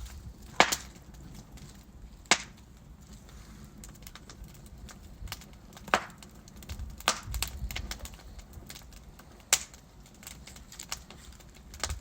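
Wood logs burning in a fireplace: a steady low rumble of flame with small crackles and a handful of sharp pops, the loudest about half a second in and the others spread a few seconds apart.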